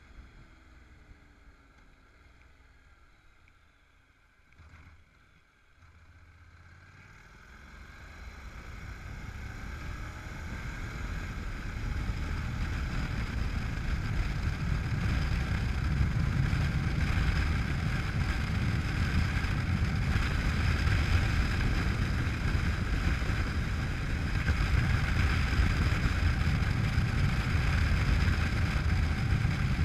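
Honda NC700X motorcycle on the move: its parallel-twin engine and wind rush over the microphone. For the first several seconds it is quiet with a faint falling engine note. It then builds steadily over several seconds to a loud, steady rush of engine and wind that holds to the end.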